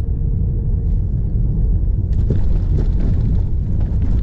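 Low, steady rumble of an SUV driving over rough dirt ground, with a few rattles and knocks from about two seconds in.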